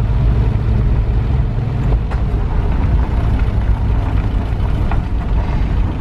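Vehicle cabin noise while driving on a gravel road: a steady low engine and road rumble with tyre noise and a few faint ticks.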